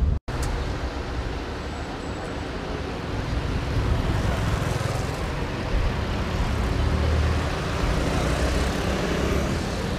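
Steady road traffic noise, cars going past on the road, with a brief dropout about a quarter second in.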